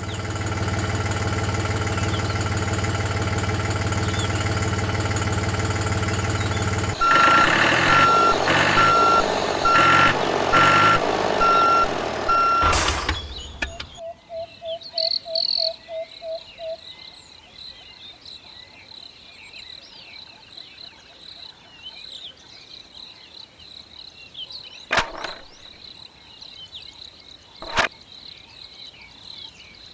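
A vehicle engine running steadily, then a reversing beeper sounding in regular beeps over the engine until about thirteen seconds in. After that the engine stops and it is much quieter, with a steady high tone, faint insect-like chirps and two sharp clicks near the end.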